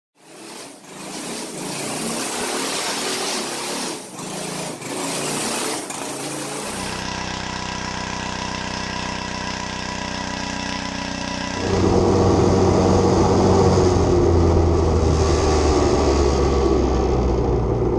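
Small gasoline engines of go-karts and mini bikes running and revving in a quick series of separate clips, the sound changing abruptly about 7 and 12 seconds in as one clip cuts to the next.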